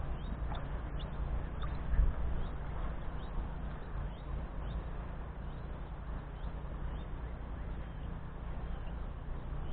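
Wind buffeting the microphone as a steady low rumble, with a brief stronger bump about two seconds in. Faint bird chirps are heard above it.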